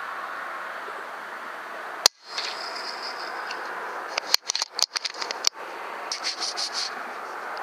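FX Impact PCP air rifle firing once about two seconds in, a single sharp crack over a steady hiss. A run of quick sharp clicks follows a couple of seconds later, then a string of short high-pitched pulses near the end.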